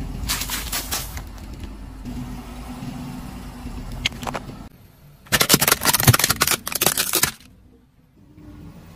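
A car tyre rolling slowly over objects on asphalt, with a low steady engine hum and scattered crackling. About five seconds in comes two seconds of loud cracking and crunching as a hard plastic toy truck breaks under the wheel.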